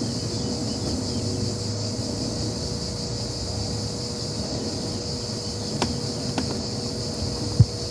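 A steady high chorus of insects, likely crickets, over a constant low hum and rumble. A couple of light clicks come about six seconds in, and a short thump comes near the end.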